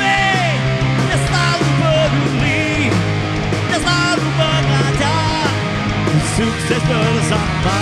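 Live rock band playing loudly: electric guitars, bass and drums, with a male singer's vocals over the band.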